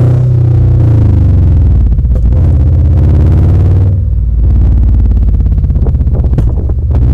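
2000 Subaru Impreza 2.5RS's 2.5-litre flat-four engine running loud through a Tsudo header, high-flow cat and aftermarket exhaust. Its pitch drops in the first second and then holds as a deep drone, easing off briefly about four seconds in.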